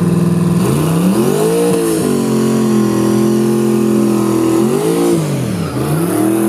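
Engine of a 1970s Chevrolet donk drag car revving in place. It runs at a steady fast idle and is blipped up twice, about a second in and again about five seconds in, falling back each time, then starts to rise again at the end.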